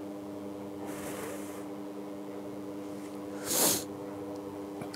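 AC arc welder's transformer humming steadily at idle, with no arc struck, its output running through a rectifier. A faint breathy noise comes about a second in, and a short, louder breathy burst about three and a half seconds in.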